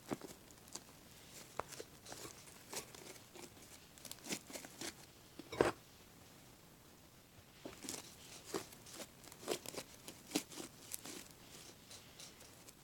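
Fluffy shaving-cream slime being kneaded and stretched by hand, giving irregular small pops, clicks and crackles, with one louder pop about five and a half seconds in and a short lull after it.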